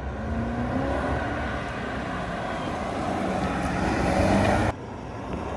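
BMW 760i xDrive's twin-turbo V8 running as the car drives, heard under dense road and wind noise, its pitch rising briefly about a second in. The sound drops abruptly near the end, then returns.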